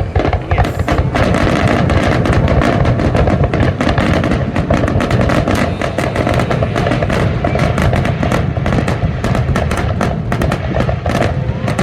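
Fireworks going off in a dense, unbroken barrage of many rapid bangs and crackles a second.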